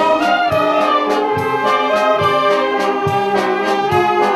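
Brass band music playing a tune over a steady beat.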